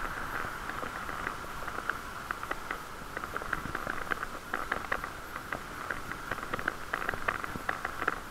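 Riding noise from a moving bicycle: a steady hiss with many small irregular clicks and ticks.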